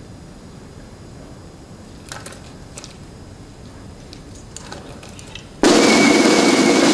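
Low background with a few faint clicks, then, about five and a half seconds in, a loud snare drum roll starts abruptly and carries on.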